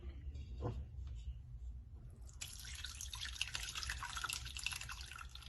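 Hot chicken soup being poured through a strainer into a container: a steady splashing of liquid that starts about two seconds in, after a brief light knock.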